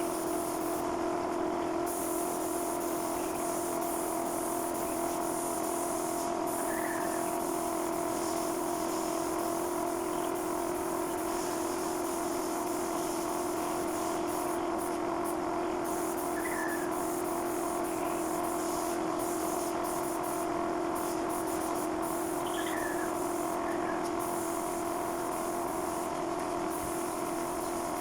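A machine's steady motor hum over a hiss, running evenly without change, with a few faint short high chirps over it.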